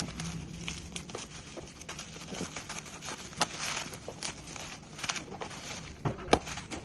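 Packaging being handled during an unboxing: crinkling and rustling with scattered clicks and knocks, busiest a few seconds in, and two sharper knocks near the end.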